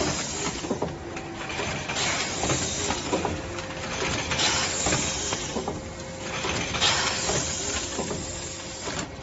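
Automatic pouch filling and packaging machine running through its cycle: rushes of hiss about every two and a half seconds over a steady hum and many small mechanical clicks.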